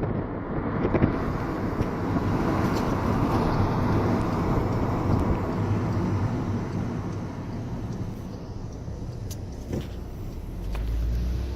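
Road traffic passing: a steady rushing that slowly fades through the second half, with a low hum coming in near the end.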